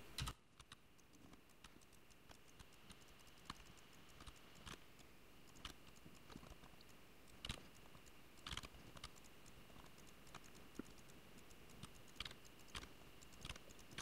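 Faint, scattered clicks of a computer keyboard and mouse, irregular and a second or so apart, over near-silent room tone with a faint steady high tone.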